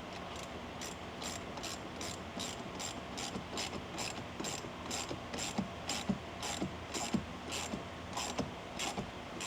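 Ratcheting mechanism clicking steadily, about two or three clicks a second.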